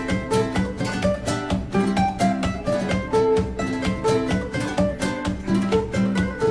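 Music led by a quickly plucked guitar, a steady run of short notes.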